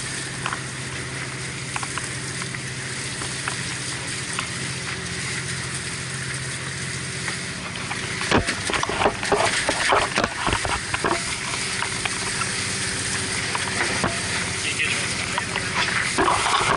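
Fishing boat underway: the rush and hiss of water along the hull and spray over a steady engine hum. A cluster of sharp knocks and clatter on deck comes from about eight to eleven seconds in, and again near the end.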